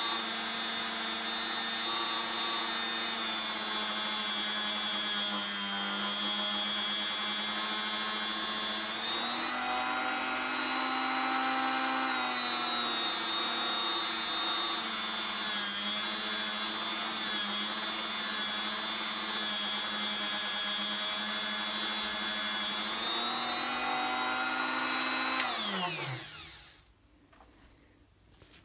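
Small electric rotary tool spinning a felt polishing bob loaded with white polishing compound while a stainless steel watch bracelet link is buffed against it. It runs as a steady high whine whose pitch dips and recovers a few times. Near the end it is switched off and winds down to a stop.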